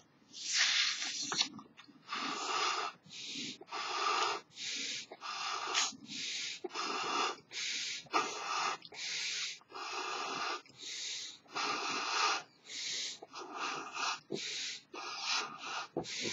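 A large elephant-shaped figure balloon being blown up by mouth: a steady run of short, breathy puffs of breath, a little more than one a second, with brief pauses between them as air is drawn in.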